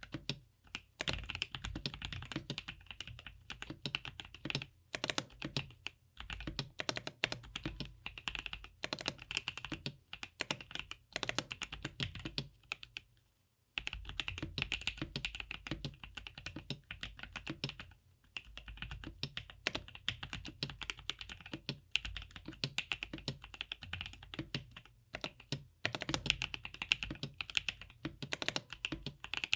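Fast, continuous typing on a GrayStudio Think 6.5 V2 mechanical keyboard with DesignerStudio White Jade tactile switches on an FR4 plate, giving a steady stream of key clacks. The typing stops briefly a little before halfway through, then carries on.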